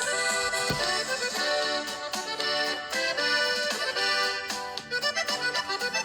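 Accordion-led Mexican regional song playing, an instrumental passage with a steady rhythm and no singing.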